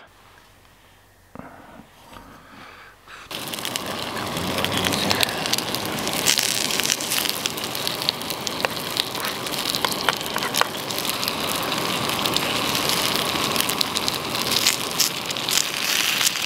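Sliced potatoes and asparagus sizzling and crackling in a hot frying pan on a camp canister stove. The sizzle starts suddenly about three seconds in, as the food goes into the pan, and keeps on as a steady crackle.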